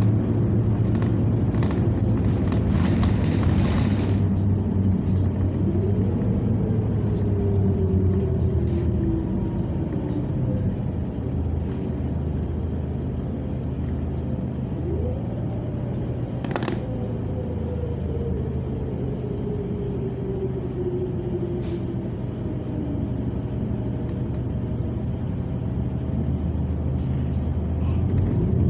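New Flyer XN40 natural-gas city bus running, with a steady low rumble; its engine and drivetrain whine rises twice and then falls away slowly as the bus pulls away and eases off. Rattles and a few sharp clicks sound over it, most of them in the first few seconds.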